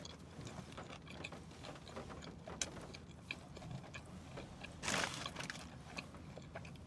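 Chewing a crispy fried chicken sandwich: faint clicks and small crunches from the mouth, with one brief louder burst of noise about five seconds in.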